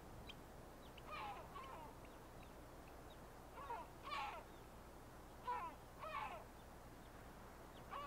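A bird calling in pairs of short, harsh, falling calls, three pairs about two seconds apart, over faint steady background noise.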